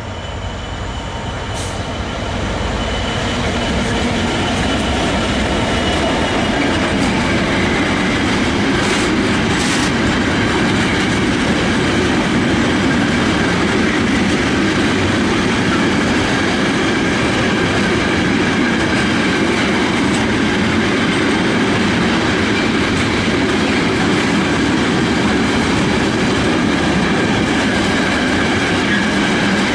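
Intermodal container freight train passing close by. The ERS Class 66 diesel locomotive's engine rumble grows over the first few seconds as it comes by, then the loaded container wagons roll past with a steady rumble and wheel clatter on the rails.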